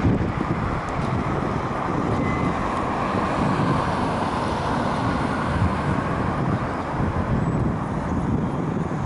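Road traffic: a vehicle passing on the road, its tyre noise swelling and fading over a few seconds, with gusty wind buffeting the microphone underneath.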